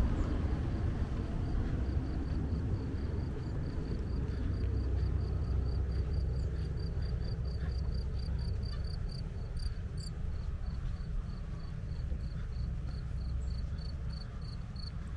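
A cricket chirping in a steady, even series of short high-pitched chirps, about four a second, which stop just before the end. Under it runs a steady low rumble.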